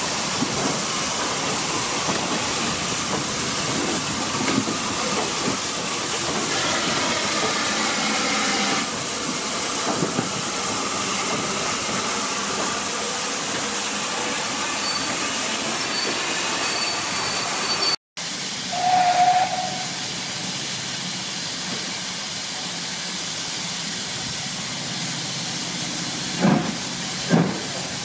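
Steady hiss of steam from Southern Railway steam locomotive No. 506 standing at a platform. After a sudden cut, a short single-pitched whistle sounds once, and a few sharp thumps come near the end.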